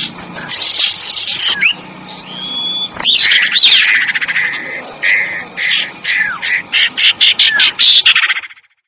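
A bird-lure recording of small songbirds calling together: fast chattering trills, sharp chirps and short down-slurred whistles overlapping one another, cutting off abruptly near the end.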